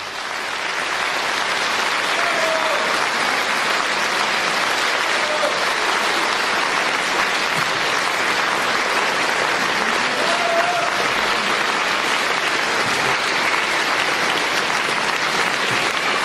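Audience applauding steadily, the applause swelling up over the first second as the orchestra's music ends, with a few faint short calls from voices heard over it.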